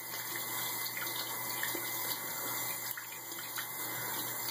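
A tap running into a sink while hands are washed under the stream, a steady splashing hiss.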